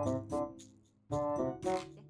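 Background music: piano or keyboard chords repeating over a light beat, dropping out briefly about halfway through.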